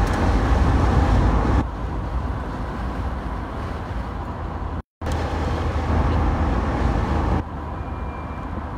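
Wind and road noise in an open-top convertible driving at speed, with a heavy low rumble of wind buffeting the microphone. The noise steps down in loudness twice and cuts out completely for a moment about five seconds in.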